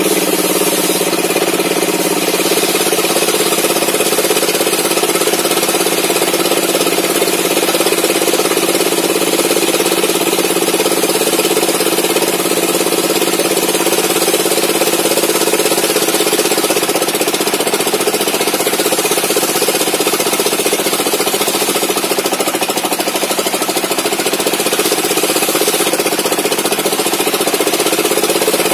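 Homemade sawmill table saw running steadily while ripping an old mahogany beam lengthwise, with the drive's drone and the blade's cutting noise unbroken throughout.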